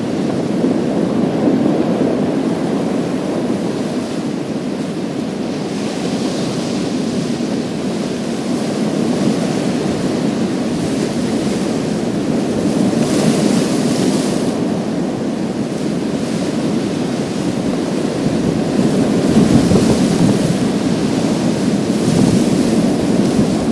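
Waves breaking on a pebble beach: a steady low rush of surf, with the hiss of water washing over the stones swelling several times.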